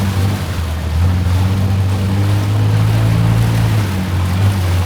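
Longtail boat engine running steadily, a loud low drone.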